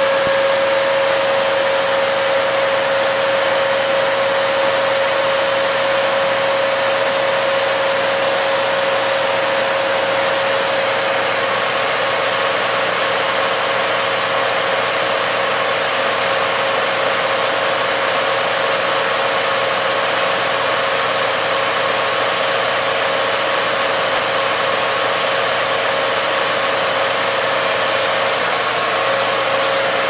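Upright vacuum cleaner running steadily: a constant motor whine over a rush of air, with no change in speed.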